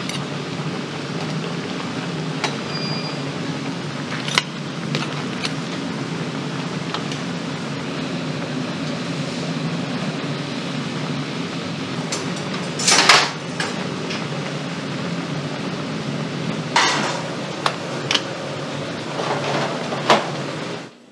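Seafood broth boiling hard in a steel tray over a burner: a steady rushing bubble. Metal tongs clink and knock against the tray and shells now and then, with the loudest clatter about two-thirds of the way through and a run of clinks near the end.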